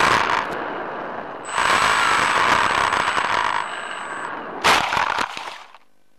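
Electric motor and rushing airflow of an Easystar RC plane, cutting in and out in three loud bursts, the middle one with a steady high whine; it cuts off suddenly near the end, leaving a faint hum.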